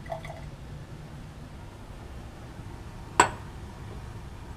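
Laboratory glassware clinking: a faint tap at the start, then one sharp, ringing glass clink about three seconds in, over a steady low room hum.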